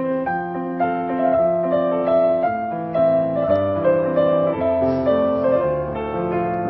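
Piano music: a melody of held notes over a lower bass line.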